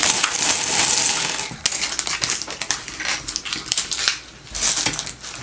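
Small plastic LEGO pieces clattering and clicking onto a wooden tabletop as a parts bag is emptied, in several bursts of clicks.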